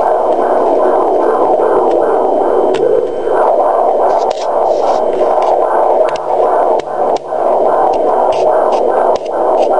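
Fetal heartbeat picked up by a Doppler monitor at 24 weeks: a fast, even whooshing pulse at about two and a half beats a second, roughly 150 a minute. A few short clicks break in, with a brief disturbance of the rhythm about three seconds in.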